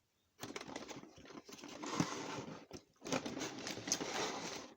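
Packaging rustling and crinkling as parts in plastic bags are pulled out of a cardboard model-kit box, in two stretches with small clicks and knocks.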